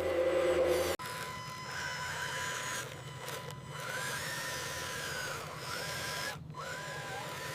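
Small electric motor of a remote-control toy truck whirring, its whine rising and falling in pitch several times over a steady hum. It begins after an abrupt cut about a second in.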